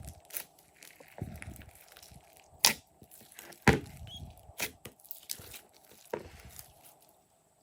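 Glossy slime being squeezed and stretched by hand: irregular sharp sticky clicks and pops with soft squishing between, fading out near the end.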